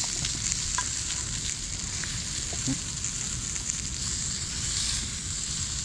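Breakfast food frying in a pan on a hinged fire box wood stove: a steady sizzle with a few small pops.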